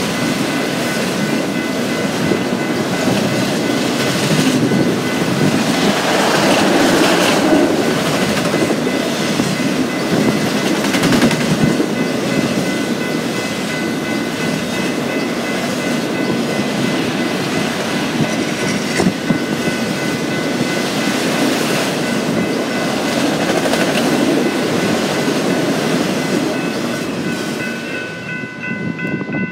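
A long train of autorack cars rolling past at speed: a steady rumble and clatter of steel wheels on the rails, falling away near the end as the last car goes by. A grade crossing bell rings throughout.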